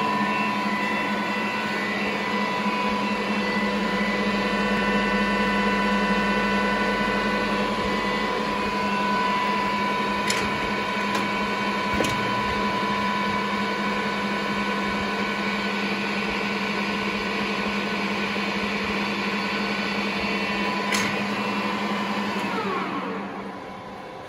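Boehringer centre lathe running idle with its spindle turning and nothing being cut: a steady whine from the headstock gearing with a few sharp clicks. Near the end the tones fall in pitch as the spindle winds down.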